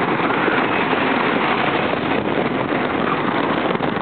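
Wooden roller coaster train running along its track at speed: a loud, steady rumble and rattle of the wheels on the wooden track, mixed with wind rushing over the microphone.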